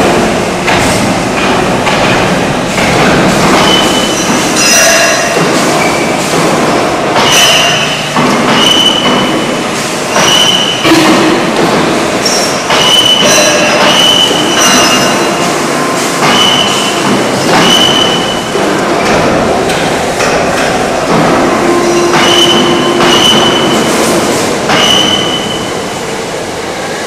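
Concrete pole spinning machine running: steel pole moulds rolling on steel support wheels. A loud, continuous rumble and rattle, with short high metal squeals every second or so.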